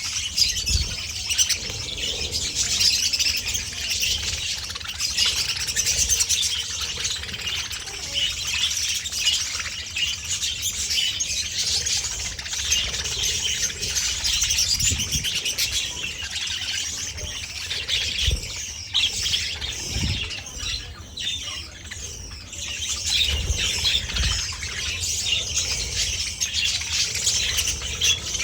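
A flock of budgerigars chattering and warbling without a break, many high chirps and squawks overlapping, with a few short low thuds now and then.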